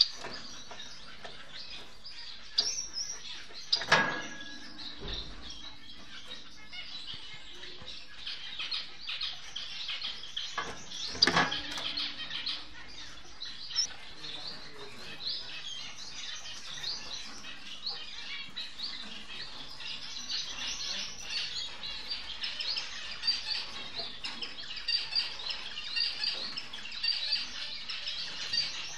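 Society finches (Bengalese finches) chirping and calling: a continuous chatter of short high notes that grows busier toward the end. Two louder sharp knocks come about four seconds in and again some seven seconds later.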